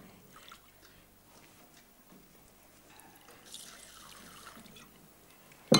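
Quiet room with faint small clicks, then a soft hiss of liquid being poured for about a second and a half past the middle, and a sharp knock near the end.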